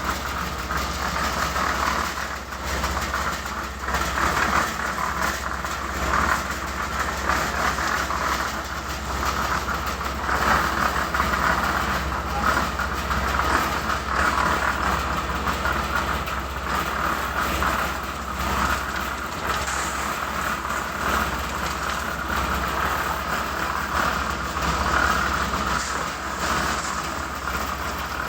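Machinery running steadily with a low hum and a continuous clattering rattle.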